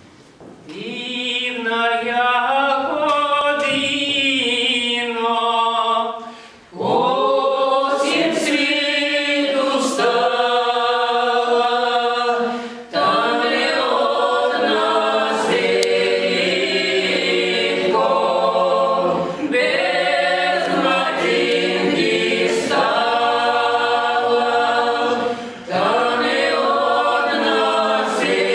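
Small mixed ensemble of women's and men's voices singing a Russian folk psalm (a spiritual song) a cappella, with no instruments. The singing starts softly and swells about a second in, and runs in long phrases with short breaths between them.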